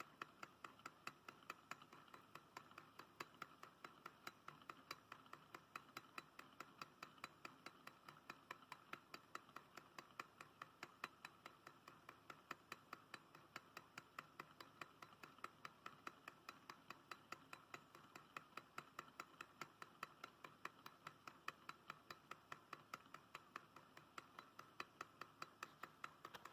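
Low-temperature-difference Stirling engine running steadily, giving a faint, even ticking about five times a second from its moving parts.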